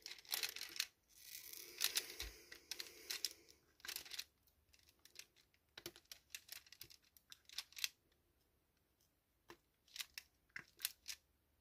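Diamond painting at work: soft rustling and crinkling for the first few seconds, then scattered faint clicks and taps as the drill pen picks up resin drills from the plastic tray and presses them onto the adhesive canvas.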